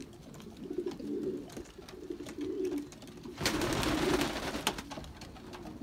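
Pigeons cooing in low, repeated phrases, with a brief rustle of a pigeon flapping its wings about three and a half seconds in.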